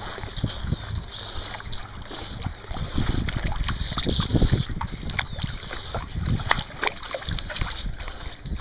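Pool water sloshing and splashing in irregular surges as a person hops on one leg through it, with wind rumbling on the microphone.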